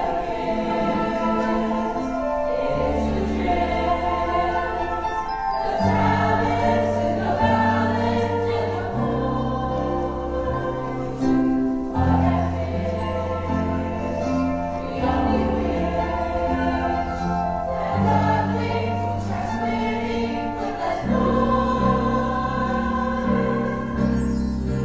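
Stage-musical song: ensemble singing over musical accompaniment, the low notes changing every couple of seconds.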